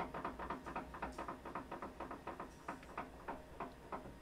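Drill bit spinning in a wood lathe's headstock chuck, boring into the end of a walnut post pressed on by hand, heard as a faint, even ticking about six times a second over a low hum.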